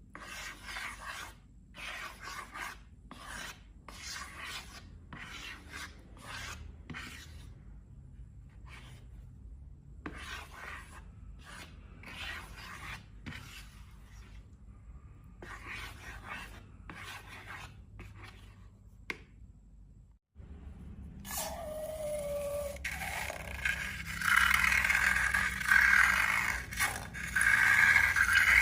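Slime being handled, with repeated rubbing and scraping strokes about one a second. About two-thirds of the way through it breaks off, then comes back as a louder, denser scraping with a short falling squeak.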